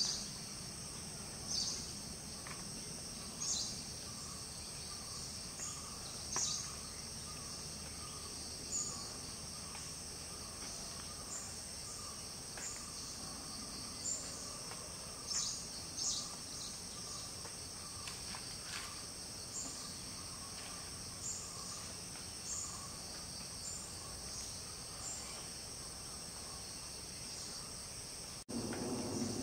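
A steady, high-pitched insect chorus of crickets or cicadas, with short chirps repeating every second or two and a fainter pulsing trill lower down. Near the end the sound cuts suddenly to a louder, lower background.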